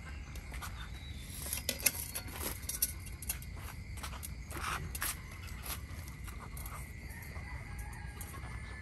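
Otters chewing and crunching fish: a run of irregular crunches and wet clicks, the loudest a little under two seconds in.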